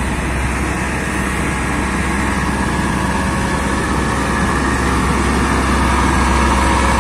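Heavy truck engine running steadily with a deep low hum, growing slightly louder.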